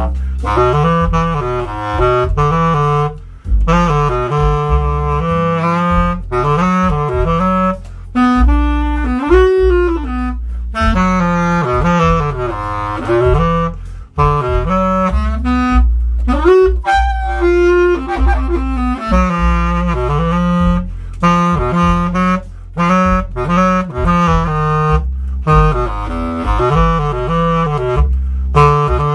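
Bass clarinet playing an improvised jazz-blues line, in phrases broken by brief pauses.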